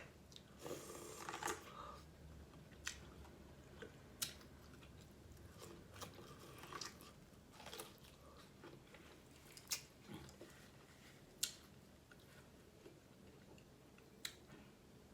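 Faint, close-up mouth sounds of a person eating a seafood boil: chewing and biting, with sharp clicks every second or two and short crunchy stretches about a second in and around seven seconds in.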